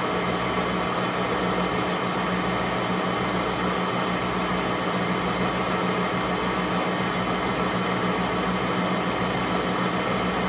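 Metal lathe running at a steady speed, an even machine hum that does not change, as a boring bar cuts a groove inside the bore of a bullet mold.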